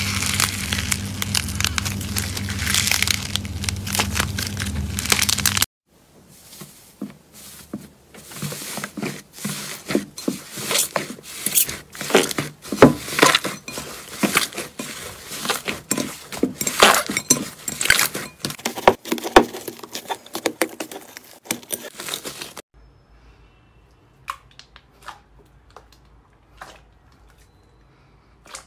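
Hands squeezing and kneading thick slime, giving a dense run of quick crackles and pops. A low steady hum runs under the crackle for the first few seconds and cuts off suddenly. Near the end it drops to a few faint clicks.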